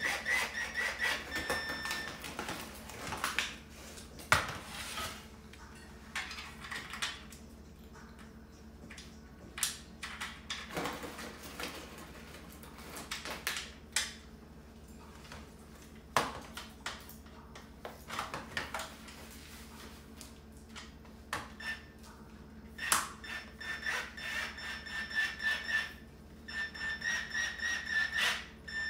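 Cordless drill/driver running in short bursts as it drives screws into the metal cart frame, a high whine that pulses several times a second near the end. Between the bursts, metal frame parts and hardware knock and clatter.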